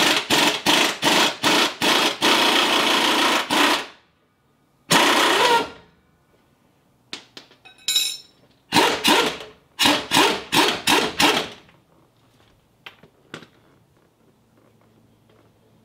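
A wrench loosening a truck's suspension control arm bolt: loud rattling bursts, about three a second, in two runs with a longer single burst between them, then only light handling noise near the end.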